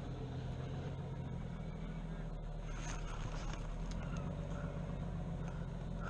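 A steady low engine hum, as of a motor running at idle, with a few faint clicks over it.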